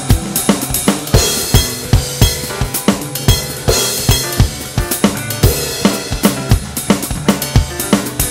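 Electronic drum kit played in a busy rock groove: kick, snare and hi-hat several hits a second, with cymbal crashes every couple of seconds, over a band recording with bass and guitar.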